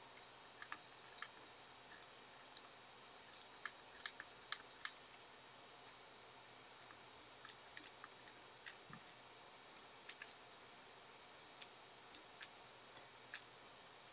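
Pencil scratching and tapping on paper in short, quick strokes: faint sharp ticks scattered irregularly over a steady low hiss.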